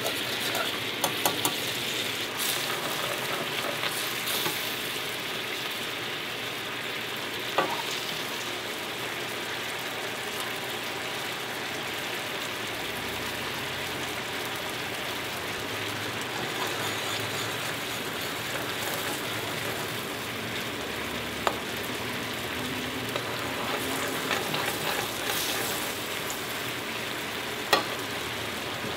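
Red wine and demi-glace sauce boiling hard in a frying pan, a steady bubbling sizzle. A metal whisk clicks against the pan a few times in the first couple of seconds, and a spoon ticks on the pan now and then.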